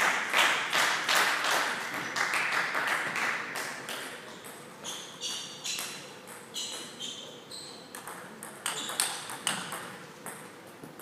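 Table tennis ball clicking off bats and table in a rally, sharp pings a fraction of a second apart with a ringing tail in the hall. Over the first three or so seconds a denser clatter and murmur from the hall fades out.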